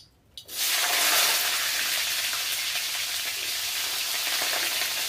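Cauliflower florets dropped into hot vegetable oil in an iron wok (kadai), sizzling. The sizzle starts abruptly about half a second in, after a couple of light clicks, and then holds steady.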